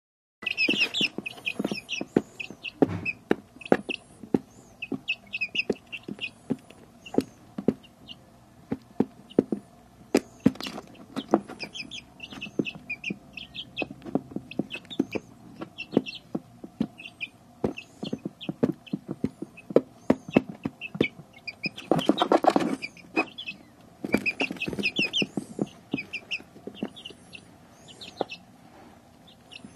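Young chicks peeping in short runs of high chirps while pecking at feed crumbles, making sharp irregular taps. A louder rustle lasts about a second roughly three-quarters of the way through.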